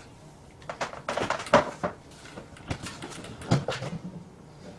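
Irregular knocks and clatter of the homemade vacuum being handled and opened up to look inside, with the sharpest knock about a second and a half in.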